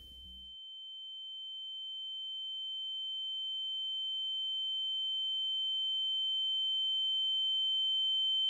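A steady, high-pitched electronic tone held on one pitch, with a fainter lower tone beneath it, growing slowly louder throughout.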